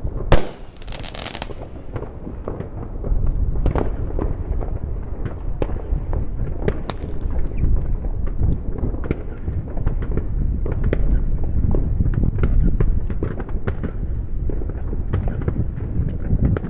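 Massed fireworks and firecrackers going off across a wide area, a dense, unbroken crackle of many distant bangs over a low rumble, with one loud close bang just after the start.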